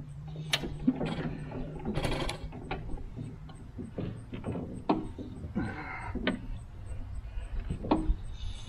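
1914 Fuller & Johnson 6 hp hit-and-miss engine being turned over by hand at its flywheels, not yet running: irregular clicks and clanks from the engine's mechanism, with a couple of short rushing noises.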